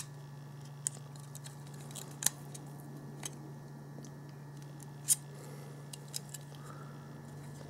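Hard plastic housing of a Linksys RE6700 Wi-Fi range extender clicking and tapping as it is handled and worked at by hand: several scattered sharp clicks, the loudest about two and five seconds in, over a steady low hum.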